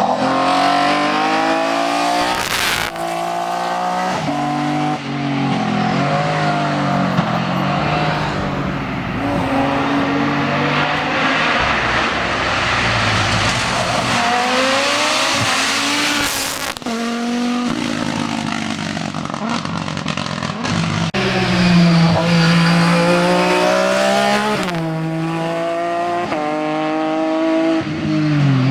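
Racing car engine on a hill-climb course, revving hard through the gears. Its pitch climbs and then drops again and again as it shifts up and brakes down.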